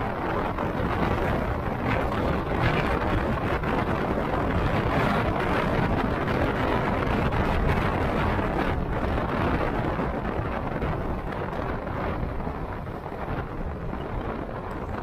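Wind rushing over an action camera's built-in microphone on a moving motorcycle, with engine and road noise beneath. It eases off a little near the end.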